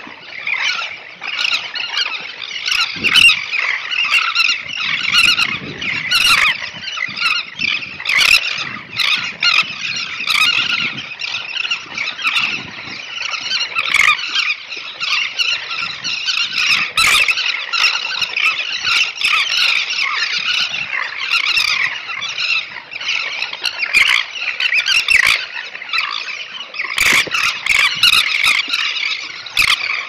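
Dense colony of elegant terns calling, many birds at once in a continuous overlapping chorus of high squealing calls. Occasional sharp clicks sound through it.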